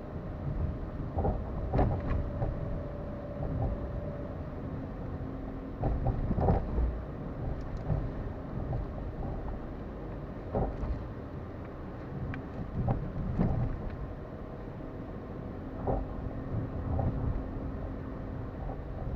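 Suzuki Wagon R MH23S driving over a rough road, a steady low rumble broken by irregular knocks and clunks from the front suspension: the abnormal noise the car makes over bumps.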